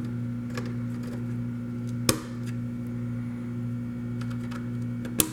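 A few sharp plastic clicks as mechanical keyboard switches are handled and pushed back into the keyboard plate, the loudest about two seconds in and again near the end. A steady low electrical hum runs underneath.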